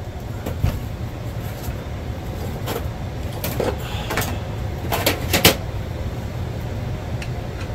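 Scattered metal clicks and knocks from the Eames chair's torsion bar and fittings being handled and slid into the chair's chassis, the loudest pair about five seconds in, over a steady low hum.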